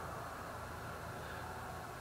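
Steady background hiss with a low hum underneath, and no distinct sounds standing out.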